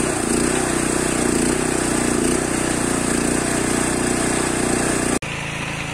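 Toyama walk-behind tractor's single-cylinder four-stroke petrol engine running steadily just after starting, the starting trouble put down to the spark plug, now replaced with a new one. About five seconds in the sound cuts abruptly to a quieter running hum.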